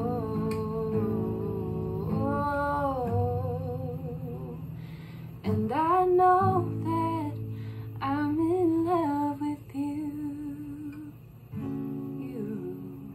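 Acoustic guitar strummed while a woman sings long, sliding notes. A last chord is strummed about a second and a half before the end and left to ring out.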